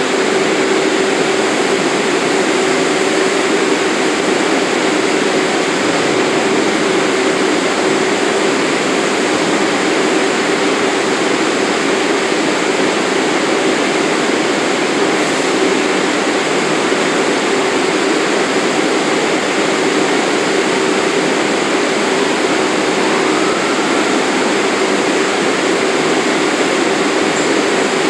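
An R62A New York City subway train standing at the platform with its doors open, running as a steady rush of air-conditioning and equipment noise with a constant low hum.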